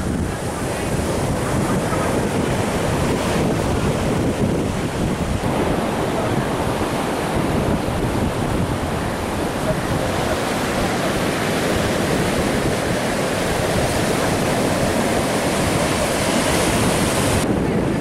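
Steady rush of sea surf breaking and washing up the sand, with wind buffeting the microphone.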